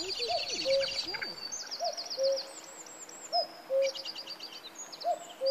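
Common cuckoo calling its two-note 'cuck-oo', the second note lower, about every one and a half seconds. Small songbirds trill high over it.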